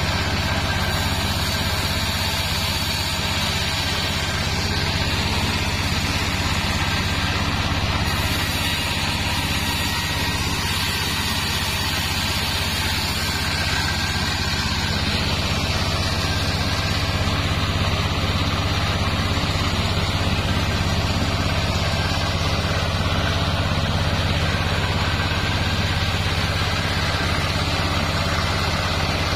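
Bandsaw mill running steadily while sawing sengon wood into boards: a constant low machine hum with a steady noisy layer above it, unbroken throughout.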